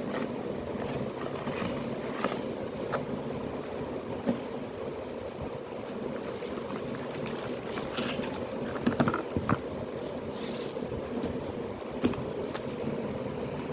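A steady low hum, like a fan or motor running, with scattered light clicks and taps, the loudest cluster about nine seconds in.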